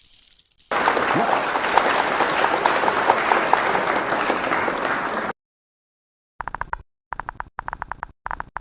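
An object rubbed or crinkled against a microphone: a dense, loud crackling rustle for about four and a half seconds that cuts off suddenly. After a short silence comes a quick series of short, buzzy scraping strokes.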